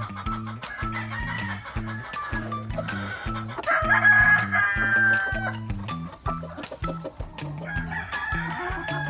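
A gamefowl rooster crows once, a long call of about two seconds near the middle, with shorter bird calls before and after. Background music with a steady beat runs underneath.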